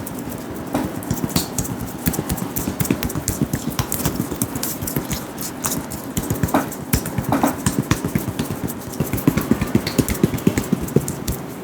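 Hands rapidly tapping, patting and rubbing on a person's head and scalp during an Indian head massage, a quick, uneven run of many small taps each second.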